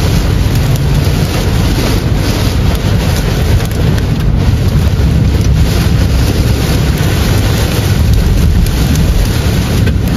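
Heavy rain pelting a moving car's roof and windscreen, heard from inside the cabin: a dense, steady patter of drops over the low rumble of tyres on the flooded road.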